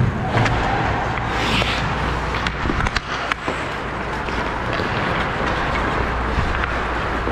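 Hockey skates scraping and gliding on rink ice, picked up by a camera worn by the skating player, with a short skate-scrape hiss and a few sharp stick clacks between about one and a half and three and a half seconds in.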